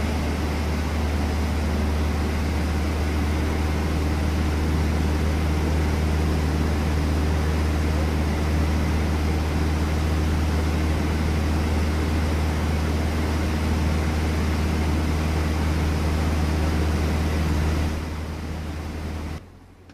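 Cabin noise of a Cessna 152 in flight: its Lycoming O-235 four-cylinder engine and two-blade propeller give a steady, loud drone with a deep low hum, heard from inside the cockpit. Near the end it eases slightly, then cuts off abruptly.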